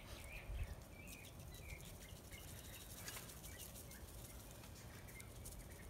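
Faint, short bird chirps here and there over a low background rumble.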